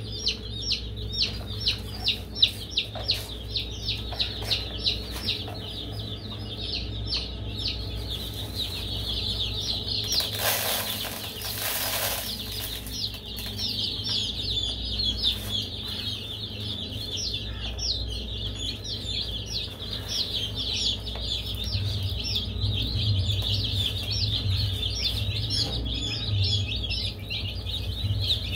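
Baby chicks peeping nonstop: many short, high peeps that fall in pitch. In the first few seconds single peeps stand out, about two a second. About ten seconds in, a hiss lasts roughly two seconds over a steady low hum.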